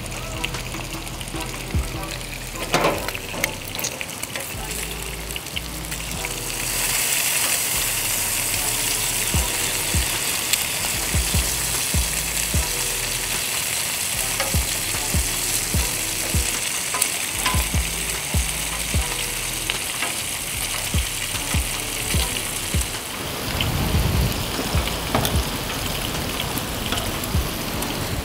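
Bacon strips, sausage slices and shredded potatoes sizzling on a hot flat-top gas griddle. The sizzle grows louder about six seconds in. Light clicks of metal tongs turning the bacon are scattered through it.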